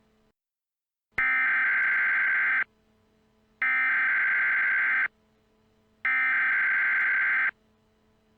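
Emergency Alert System SAME header: three identical buzzy data tones, each about a second and a half long with about a second between them, the coded signal that opens an emergency alert.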